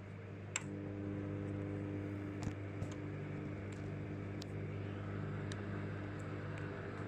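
Microwave oven running with a steady electrical hum that thickens about half a second in, with a few sharp clicks from the oven's contents or cavity.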